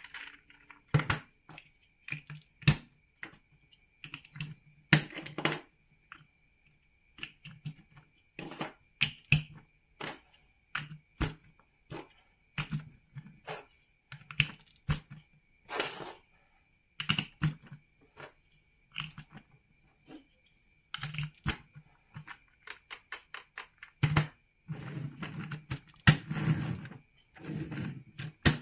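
Plastic building bricks being handled and snapped together: irregular sharp clicks and knocks. Near the end they come as denser clattering runs, like bricks being rummaged.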